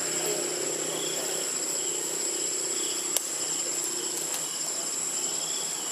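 Insects calling steadily in forest: a constant high whine with a fast pulsing chirr over it. A single sharp click a little past halfway, and a faint low hum that fades out near the end.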